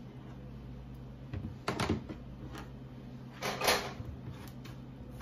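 Chef knife knocking on a plastic cutting board as peeled potatoes are cut into small pieces and handled: a handful of irregular knocks and short clunks.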